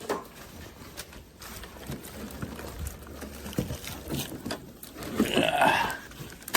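Unboxing and handling noises: rustling, with scattered clicks and knocks as the air conditioner and its packing are moved. About five seconds in comes a short, louder squeak that rises in pitch.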